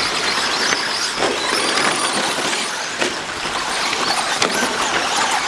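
Radio-controlled 2WD short course trucks racing, their motors whining in pitches that rise and fall as they accelerate and brake, with a sharp knock about three seconds in.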